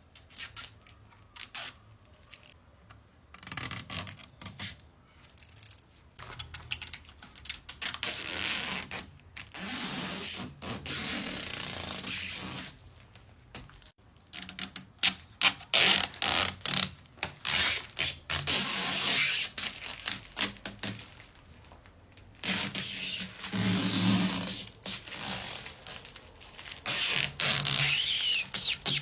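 Packaging being pulled and torn open: irregular scraping, tearing and rustling of wrapping, with scattered knocks and clicks.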